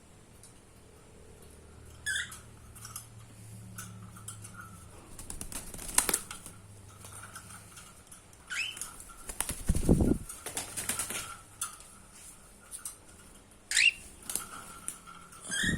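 Cockatiels giving short rising chirps, about four times, among scattered scratching and rustling, with a dull thump about ten seconds in.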